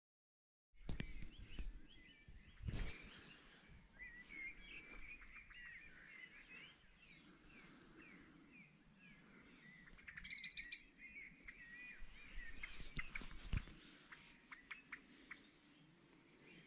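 Several songbirds chirping and calling in many short notes, with a brighter, higher trill about ten seconds in. Two brief knocks stand out, a few seconds in and again near the end.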